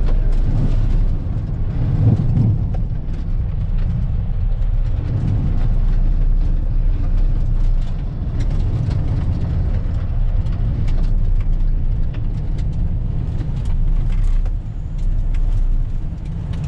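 Truck driving along a muddy dirt road: a steady low engine and road rumble that swells and eases, with scattered small clicks and knocks.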